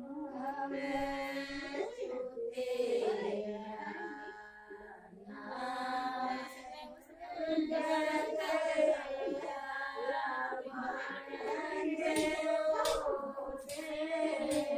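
Women's voices singing a Himachali folk wedding song in long held, wavering notes, in phrases broken by short pauses.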